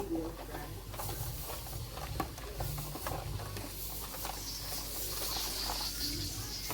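Kitchen cooking sounds: a steady low hum with scattered clicks and taps of utensils, and a faint hiss of food cooking on the stove that grows in the second half.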